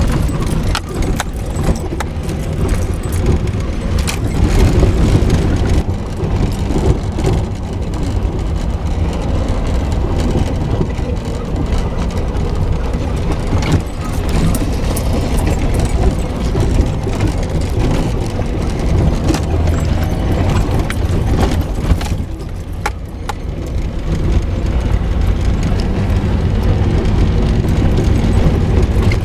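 Jeep crawling over a rough, rocky dirt trail: a steady low rumble of engine and drivetrain, broken by frequent short knocks and rattles from the bouncing vehicle.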